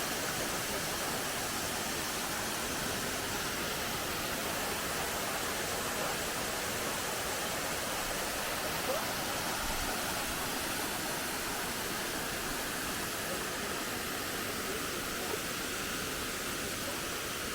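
Salza waterfall: steady rushing of falling water, an even hiss that does not change.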